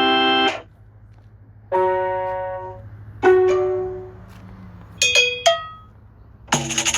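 Samsung Galaxy S8+ notification tones played one after another: about five short electronic chimes at differing pitches, each lasting a second or less and dying away, with brief pauses between.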